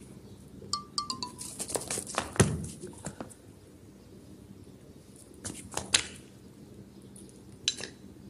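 Sharp clicks and taps of a rooster's beak pecking at a hard tiled floor: a quick run of them through the first few seconds, a second cluster a little past the middle and a single tap near the end.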